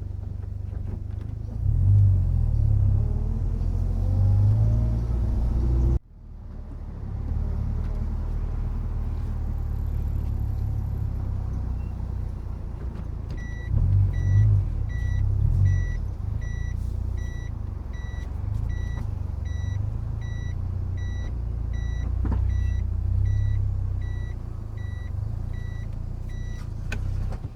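Low engine and road rumble inside a Subaru WRX STI's cabin while driving. After a cut, the car manoeuvres slowly to park with the reverse warning beeping about twice a second. A few knocks late on are the brake pads shifting inside the Brembo calipers, which are fitted with Endless MX72 pads and no anti-noise shims.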